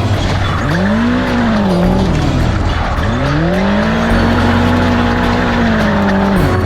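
Suzuki Ignis engine revving up and down repeatedly as the car is driven hard through tight manoeuvres. It rises and falls in pitch twice, then holds high revs for a couple of seconds before dropping near the end, with some tyre noise. Music plays underneath.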